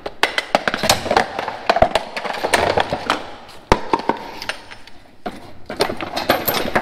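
Irregular metal clanking and knocking as brackets are worked loose on a John Deere 515 grain drill's press-wheel row, with one sharp strike a little under four seconds in.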